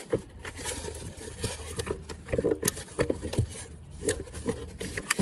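Close handling noise: irregular rubbing, scraping and light knocks right at the microphone.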